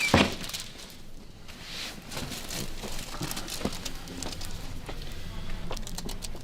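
A patient turning over on a chiropractic treatment table: a sharp thump right at the start, then rustling and crinkling with scattered soft clicks and knocks as she shifts and settles.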